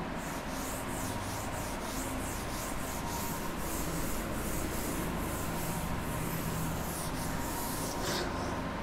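Writing strokes scratching on a board, a few quick strokes a second with a longer stroke near the end, over a steady background hum.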